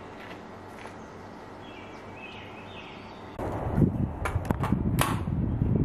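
Sharp metallic clicks and knocks from a .223 carbine being handled on its shooting rest, several in quick succession, over a low rumble that starts about three and a half seconds in. Before that there is only quiet outdoor air with a few faint chirps.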